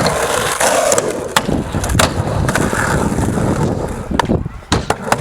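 Skateboard wheels rolling and rumbling on concrete, with several sharp clacks and knocks of the board.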